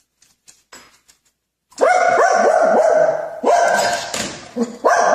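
Faint clicks, then about two seconds in a dog starts barking loudly and repeatedly in quick runs.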